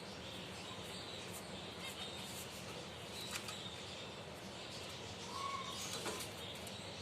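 Finches chirping in short, scattered high notes over a steady background hiss, with a couple of sharp clicks about three and six seconds in.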